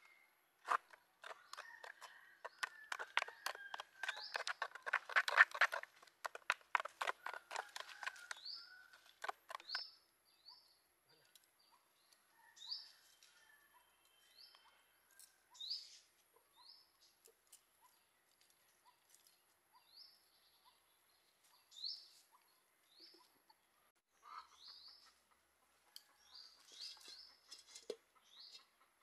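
A spoon scraping and stirring round a coconut-shell bowl in rapid strokes, mixing eggs into flour for a batter, for about the first nine seconds. After that a bird chirps in short, repeated calls every second or two.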